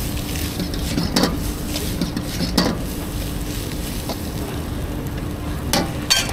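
Chow mein noodles and vegetables sizzling in a wok while a metal spatula stirs and tosses them, with a few sharp clanks of metal on the wok, over a steady low burner rumble.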